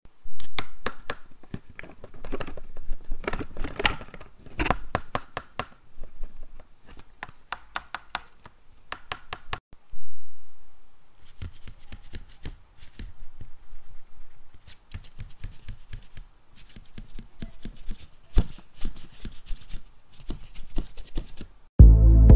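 Folded paper dragon puppets snapping their jaws close to a microphone: quick runs of sharp paper clacks and rustles, starting and stopping irregularly. Music comes in just at the end.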